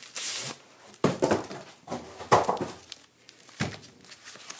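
Cardboard box and paper wrapping being handled and torn open to get a guitar neck out: rustling and crinkling, with a few sudden loud bumps about a second in, past the two-second mark and near the end.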